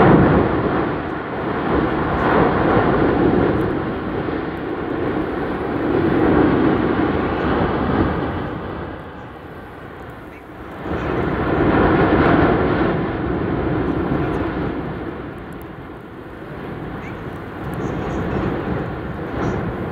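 Erupting vent of the Cumbre Vieja volcano blasting out gas, ash and pyroclastic material in a continuous jet-like rush of noise. It starts abruptly, then swells and eases in several surges a few seconds apart.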